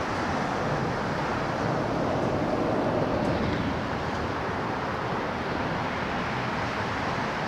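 Steady roar of road traffic, an even wash of tyre and engine noise with no single vehicle standing out.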